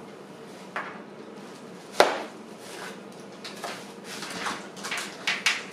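Objects being handled during an unboxing: a single sharp knock about two seconds in, then a quicker run of lighter clicks and rattles near the end.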